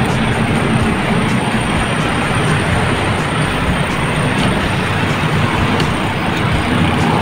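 Steady loud rush of wind over the microphone of a camera riding along on a moving bicycle, mixed with road traffic noise.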